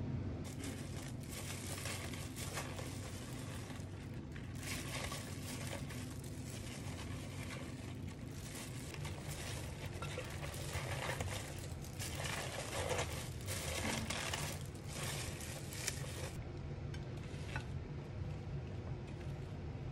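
Raw cabbage leaves and shredded carrot being tossed and squeezed by hand in a glass bowl while being salted for pickling: crisp, irregular rustling and crunching of the leaves, with scrapes against the glass. The rustling eases off near the end, over a steady low hum.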